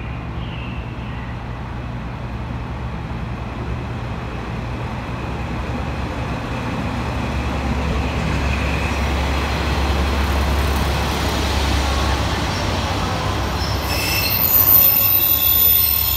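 A diesel railcar pulls into the platform, its engine and wheels rumbling steadily louder as it runs past. Near the end, high-pitched wheel and brake squeals come in as it slows to a stop.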